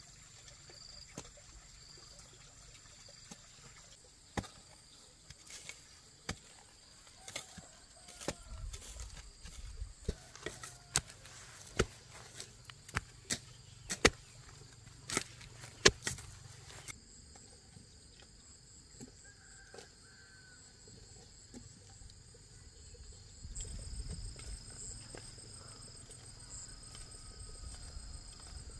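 Irregular dull thuds of a wooden pole being jabbed into soil to dig post holes, loudest about halfway through, over the steady chirping of insects.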